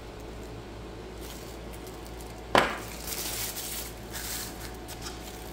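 Small model parts and packaging being handled: one sharp click about two and a half seconds in, then soft rustling.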